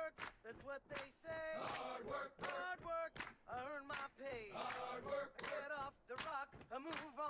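Background music: a male voice chanting or singing over a steady beat.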